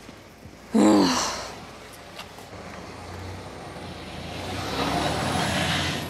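Intercity coach bus pulling away from a roadside stop, its engine and tyre noise building over the last few seconds. A brief loud voice-like cry about a second in.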